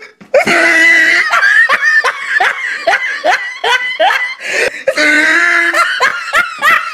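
A person laughing hard in a rapid run of high-pitched bursts, about three a second.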